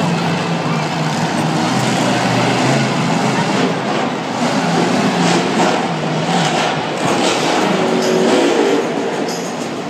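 Monster truck engines running and revving across the stadium arena, over a steady wash of crowd noise.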